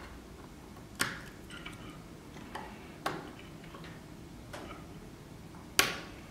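Tweezers clicking and tapping against the small cover and frame inside an iPhone 4S as the cover is pried at: five sharp clicks a second or so apart, the loudest near the end.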